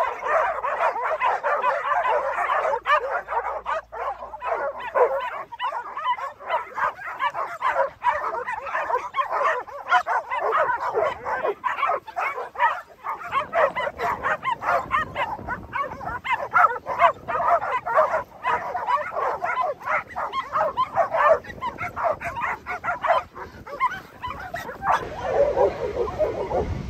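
A large pack of dogs barking and yipping all at once, many overlapping calls forming a continuous chorus.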